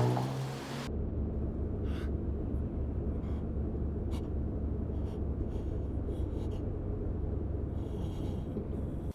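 Steady low rumble of a car's engine and road noise heard from inside the cabin while driving, with a few faint light clicks.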